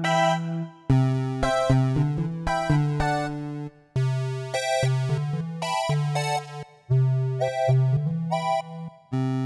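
Casio CTK-800 electronic keyboard playing a short phrase of rising notes over a held low note. The phrase starts again about every three seconds, each time in a different preset tone.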